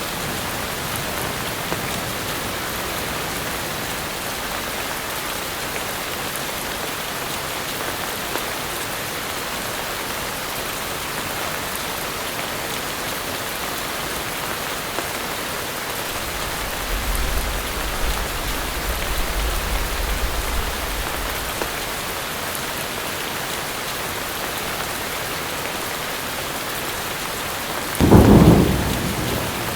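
Steady heavy rain. A low rumble of thunder rolls for a few seconds a little past halfway, and a sudden loud thunderclap, the loudest sound here, comes near the end.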